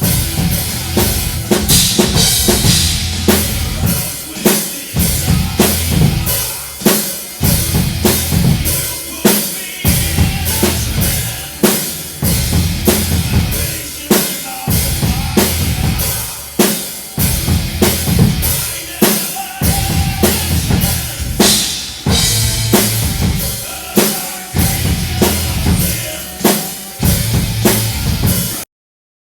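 Drum kit playing a steady heavy-metal beat, with bass drum and snare hits and cymbals over the music. The sound cuts out completely for about a second near the end.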